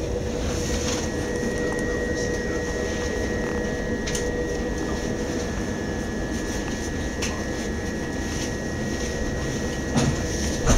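Steady hum inside a Class 377 Electrostar electric train carriage, with a constant high whine from its electrical equipment that comes in about a second in. A few light clicks, and a louder knock near the end.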